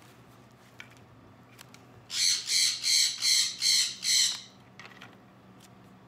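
Sun conure screeching: about six harsh, loud screeches in quick succession, roughly three a second, starting about two seconds in.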